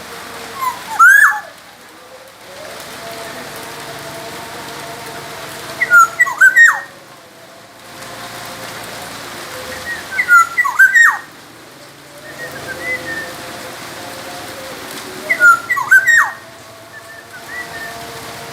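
Black-naped oriole (kepodang emas) singing: four short phrases of loud, fluty whistled notes that slide up and down, coming about every four to five seconds over a steady background hiss.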